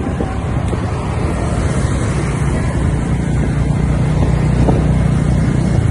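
Motorbike engine running steadily while riding, heard from on the bike, with wind buffeting the microphone. The engine hum gets a little louder in the second half.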